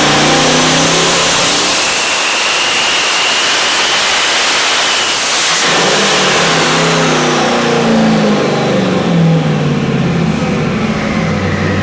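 Twin-turbocharged V8 making a full-throttle pull on an engine dynamometer: the engine note and a high turbo whine rise together, cut off sharply about five and a half seconds in as the throttle closes, then fall away as the engine drops back toward idle.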